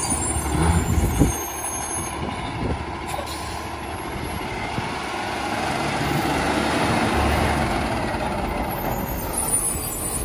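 Automated side-loader garbage truck's diesel engine pulling away and driving past, growing louder in the middle as it passes. There is a heavy clunk about a second in, and brief high-pitched squeals at the start and near the end.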